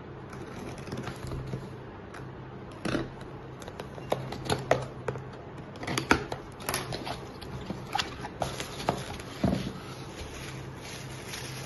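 A box cutter slicing packing tape on a cardboard shipping box, then the flaps pulled open and a bubble-wrapped package lifted out. The sound is scattered scrapes, clicks and rustles of tape, cardboard and plastic wrap.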